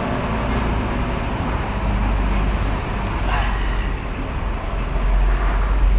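Steady low rumble of an idling engine.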